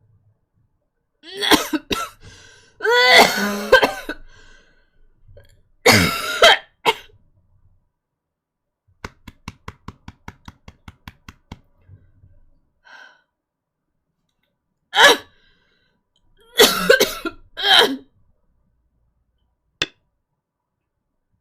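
A woman coughing in about five hard fits spread across the stretch. In the middle, between fits, there is a quick, even run of about a dozen light clicks.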